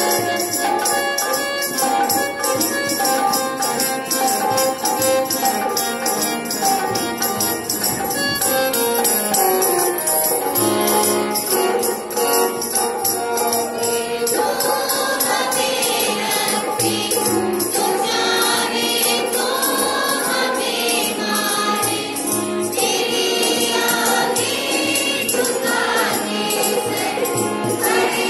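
Children singing a Hindi school prayer song together through a microphone, with jingling percussion. The singing becomes fuller about halfway through.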